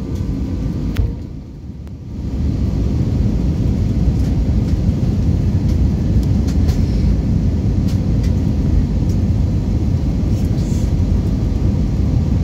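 Steady cabin noise inside an Airbus A321-231 on its descent: a low rush of airflow and engine noise heard from a seat behind the wing. It gets louder about two seconds in and then holds steady.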